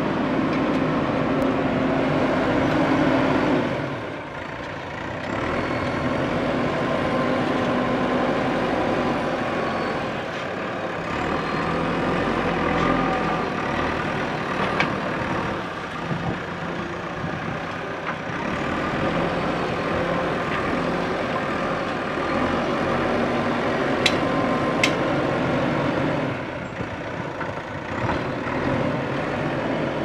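JCB 3DX backhoe loader's four-cylinder diesel engine running under working load, with a steady hum that eases off briefly about four seconds in and again near the end before picking up.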